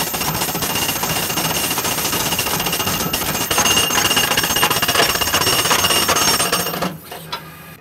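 Truck-mounted hydraulic ground rod driver hammering a ground rod deeper into the earth in rapid, continuous blows, with a steady high ring over them. It stops abruptly about seven seconds in. The rod is being driven deeper to lower the ground's resistance.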